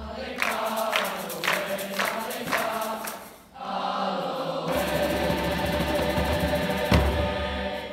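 Large boys' choir singing, with sharp beats about twice a second over the first few seconds. After a short break the choir holds one long closing chord, with a sharp hit about a second before it cuts off.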